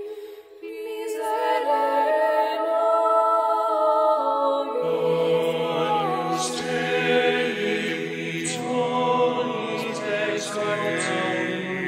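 Mixed choir singing a cappella. Women's voices sing alone at first, after a brief dip just after the start, and men's voices enter about five seconds in, adding lower parts beneath them.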